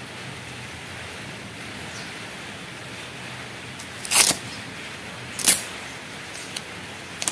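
Black adhesive tape being pulled off its roll: two short, loud ripping sounds about a second and a half apart, followed by a few faint clicks.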